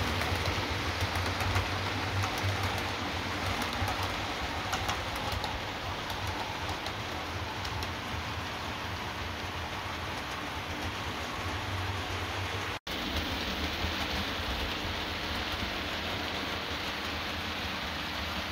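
Bachmann OO gauge model locomotive and its coaches running along the layout's track: a steady rushing rattle of small wheels on rail, with a low motor hum and scattered small clicks. The sound drops out for an instant about two-thirds of the way through.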